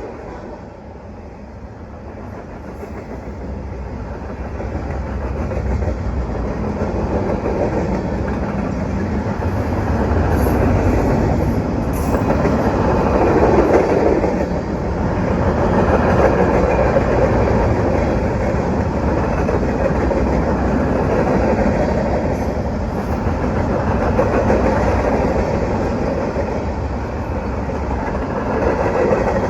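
Norfolk Southern freight train rolling past, a steady rumble of steel wheels on the rails that grows louder over the first several seconds and then holds.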